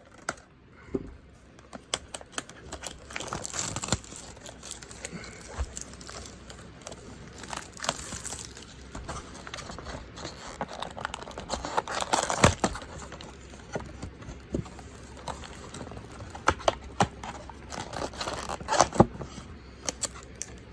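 Plastic wrapping on a Magic: The Gathering prerelease box crinkling and tearing as it is opened by hand, mixed with irregular clicks and taps of the cardboard being handled, in several louder bursts.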